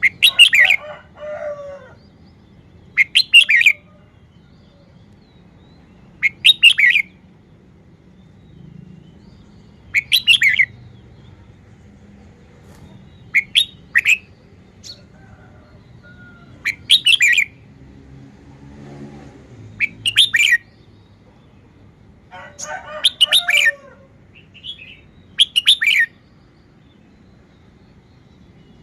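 Red-whiskered bulbul singing: short, bright whistled phrases repeated about every three seconds. Lower, rougher sounds come in under the first phrase and again about two-thirds of the way through.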